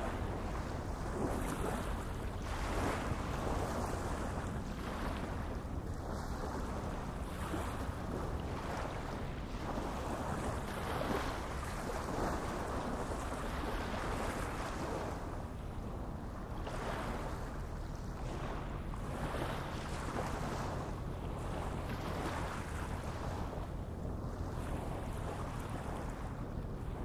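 Steady wind and water noise that swells and fades irregularly, over a constant low rumble.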